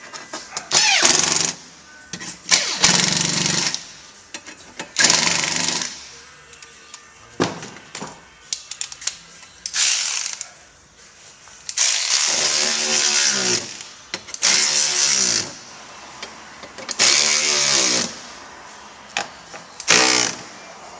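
Power driver tightening the screws and bolts of a rear diffuser, run in about eight short bursts a couple of seconds apart, its motor whirring up and winding down with each burst.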